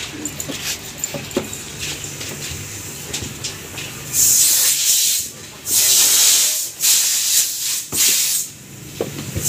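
Compressed air from an air hose hissing in four loud bursts, the first and longest about four seconds in, as when putting air into a motorcycle tyre and inner tube. Light clicks and handling noise come before the bursts.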